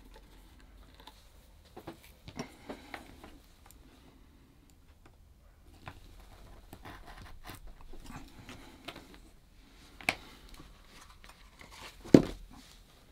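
Leather rand being trimmed by hand: quiet scratchy cutting and small handling clicks against the bench, with one sharper knock about a second before the end.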